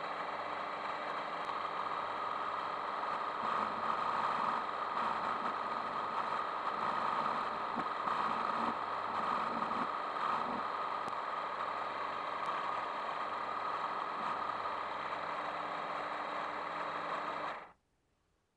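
Mini metal lathe running, its motor and gears giving a steady whine while a tool cuts a metal bar. The sound cuts off suddenly near the end.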